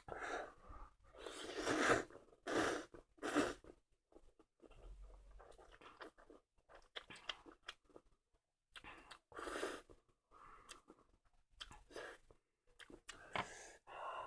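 A person eating spicy stir-fried instant noodles close to the microphone: a run of loud eating noises in the first four seconds, then quieter intermittent chewing.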